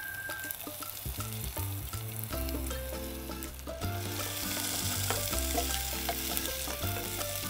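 Red onions frying in hot oil in a pan while being stirred, a steady sizzle that grows louder about halfway through, as they are tempered. Background music with a repeating bass line plays underneath.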